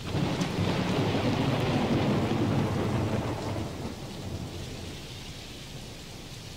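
Thunder rumbling over the steady hiss of rain, loud for the first three seconds or so, then dying away to a softer rain.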